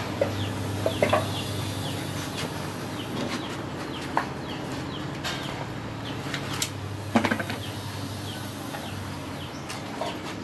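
Chickens clucking nearby, with a few sharp metallic knocks as motorcycle rear shock absorbers are handled and set down on a concrete floor; the loudest knock comes about seven seconds in. A steady low hum runs underneath.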